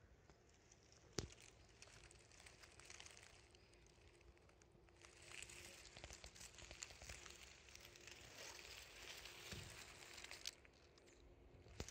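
Near silence: faint outdoor ambience with a single sharp click about a second in and a stretch of faint fine crackling in the second half.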